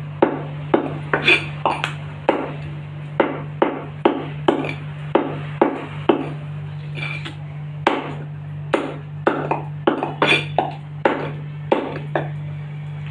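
Butcher's cleaver chopping a whole chicken into pieces: sharp, irregular chops, roughly two a second, over a steady low hum.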